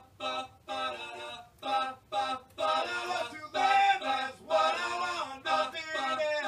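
A male voice singing alone, with no instruments, in short phrases separated by brief gaps.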